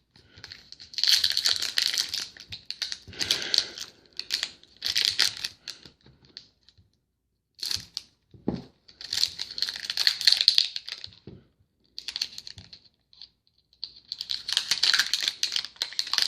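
Trading card pack wrappers being torn open and crinkled by hand, in a series of short rustling bursts with brief pauses between them.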